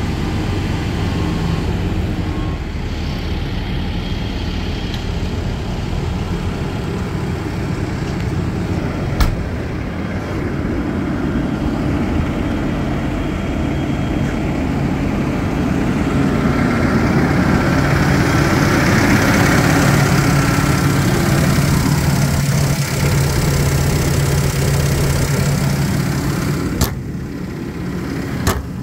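Takeuchi TB2150 excavator's diesel engine idling steadily, growing louder with an added fan-like hiss for several seconds past the middle. A few short clicks stand out.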